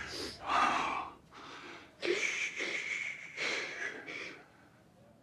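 A girl sobbing: several short, breathy gasps, with a drawn-out whimper from about two seconds in.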